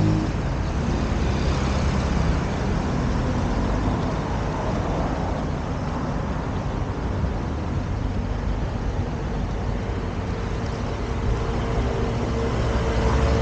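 Steady city street traffic: motor vehicles driving past with a continuous low engine rumble.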